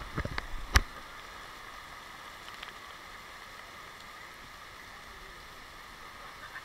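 Heavy rain, heard muffled through an action camera's waterproof housing as a steady hiss. A few knocks come within the first second, the last one sharp and loud.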